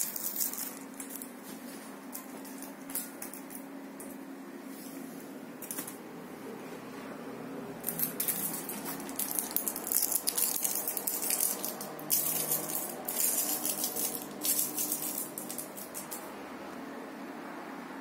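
Short bursts of crinkling and rustling come and go, sparse at first and thicker from about eight seconds in, over a faint steady low hum.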